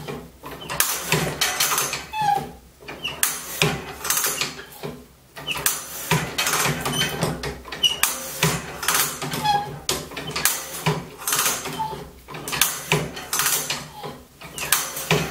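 Manual two-tooth band saw setting machine being worked stroke after stroke with its hand lever: repeated metallic clicking and clattering with short squeaks as the steel blade is advanced and two teeth are set at a time, the strokes coming every second or two with brief pauses.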